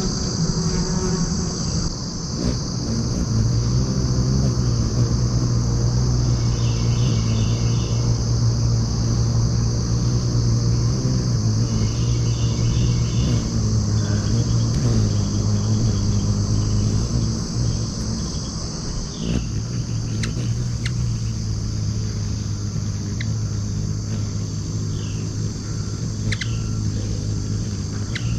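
Ruby-throated hummingbird's low wing hum as it hovers at a feeder, strong for most of the first two-thirds and fainter after, over a steady high chorus of crickets. A few short high chirps come in the last third.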